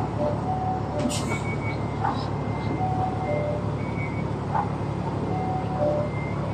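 Reversing alarms of container-yard vehicles beeping at several different pitches, each beep short and repeated about once a second, over a steady low engine hum. There is a sharp click about a second in.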